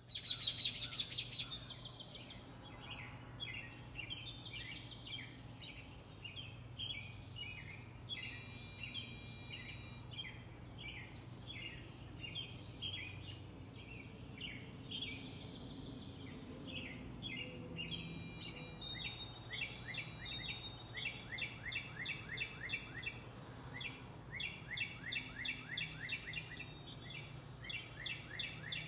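Songbirds chirping and trilling over and over, several overlapping calls, with a low steady hum underneath.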